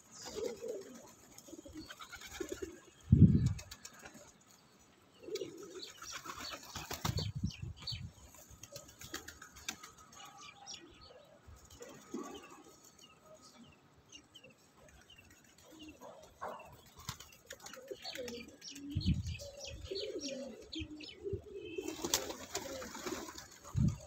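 A flock of domestic pigeons cooing, with flurries of wing flapping as birds take off and land, about seven seconds in and again near the end. A few dull low thumps, the loudest about three seconds in.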